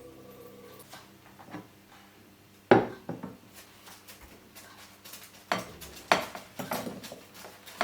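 Kitchen dishes and utensils clinking and knocking: a handful of sharp, irregular strikes, the loudest about three seconds in, with a cluster of lighter ones a couple of seconds later.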